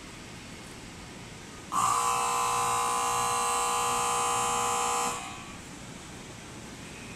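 Horn of a JR 681 series limited express train, one steady blast of about three seconds that starts and stops abruptly, sounded as the train departs.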